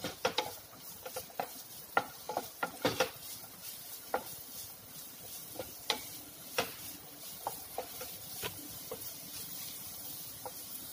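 Wooden spatula stirring chopped onions frying in oil in a nonstick pan: irregular taps and scrapes against the pan over a faint sizzle. The taps come thickest in the first few seconds, then more sparsely.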